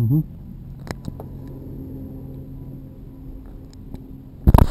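Light clicks, then near the end a quick run of loud, sharp knocks and clatters as motorcycle throttle-body parts and tools are handled, over a steady low hum.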